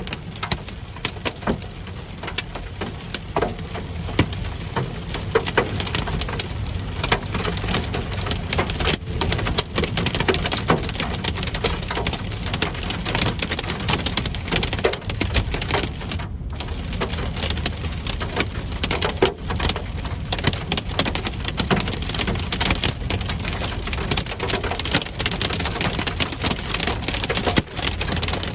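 Ping-pong-ball-size hail pelting down in a storm: a dense, unbroken stream of hard clicks and knocks over a steady wash of rain and wind.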